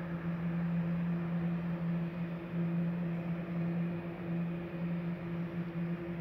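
Airbus A330-200 jet engines running at low thrust just before the takeoff roll: a steady low hum over an even hiss, not rising.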